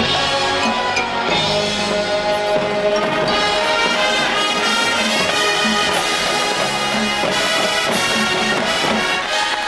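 A marching band's brass section playing loud sustained chords, with percussion hits in the full ensemble.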